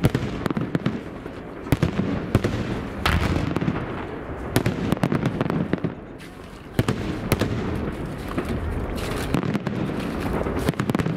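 Aerial fireworks shells bursting in quick succession: many sharp bangs over a steady low rumble, easing briefly about six seconds in before the bangs pick up again.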